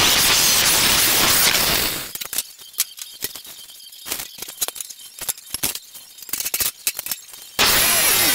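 Angle grinder cutting steel, then winding down about two seconds in. Several seconds of light metallic clinks and taps follow as the steel piece is handled on the workbench, and the grinder starts again suddenly near the end.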